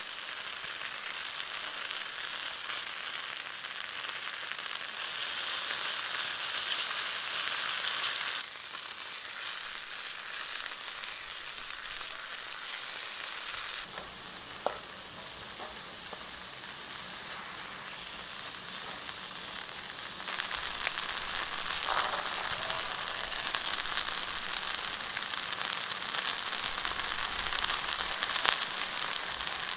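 Food frying in a pan, a steady sizzle with a few sharp pops.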